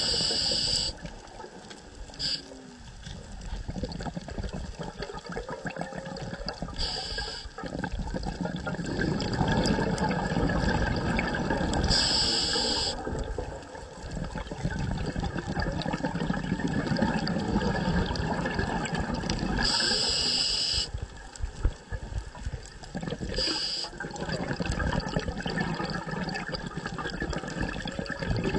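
Scuba diver breathing through a regulator underwater: short hissing inhalations every few seconds between long stretches of bubbling exhalation.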